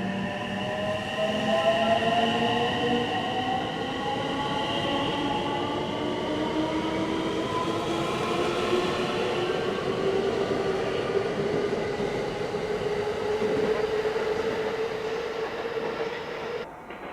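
JR West 225 series electric train accelerating away from a station, its VVVF inverter and traction motors whining in several tones that rise steadily in pitch over rolling rumble. The sound cuts off suddenly near the end.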